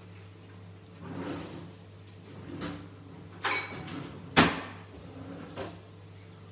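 Metal spoon knocking against a bowl and a frying pan as batter is spooned into hot oil: several sharp knocks, the loudest about four seconds in, over a low steady hum.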